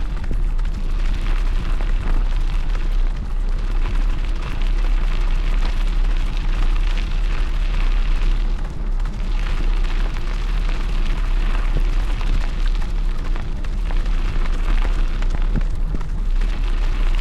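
Wind buffeting the microphone of a bike moving at speed behind a dog team, a steady low rumble with a hiss of the tyres rolling over the trail.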